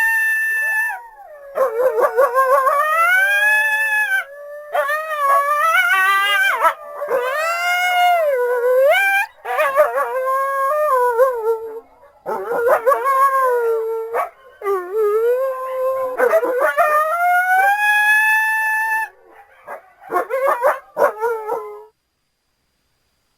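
Coyote calls: a string of howls, each gliding up and then down in pitch, broken by quavering yips.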